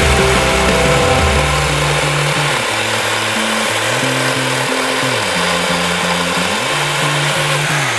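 Background music with a low, gliding bass line over a steady mechanical noise like a running power tool or engine.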